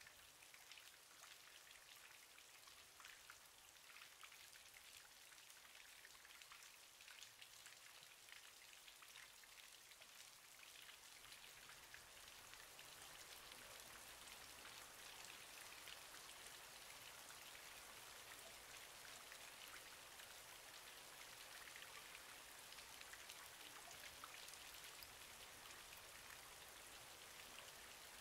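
Faint, steady rain-like patter and hiss made of many tiny ticks, growing slightly louder about halfway through.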